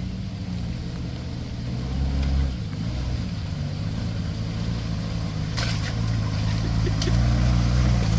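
Off-road 4x4's engine running steadily under load, growing gradually louder, with two short sharp knocks a little past halfway.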